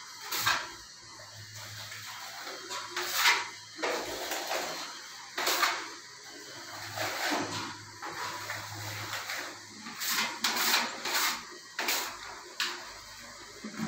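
Steel putty blades scraping as wall putty is spread and smoothed on a wall: a string of short rasping swishes a couple of seconds apart, coming closer together near the end. A faint low hum runs underneath.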